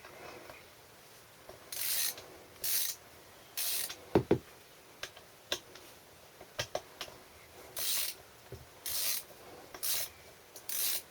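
Ratchet wrench worked in short strokes on the stiff ignition-coil mounting bolts of a Briggs & Stratton engine, about seven strokes in two groups. Two sharp metal knocks about four seconds in.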